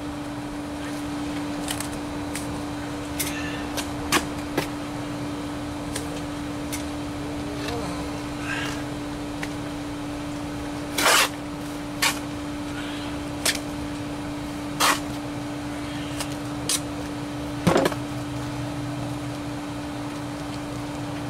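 Concrete blocks being set and a steel trowel knocking and scraping on block and mortar: about a dozen sharp knocks and a few short scrapes, the loudest about eleven and eighteen seconds in. A steady machine hum runs underneath.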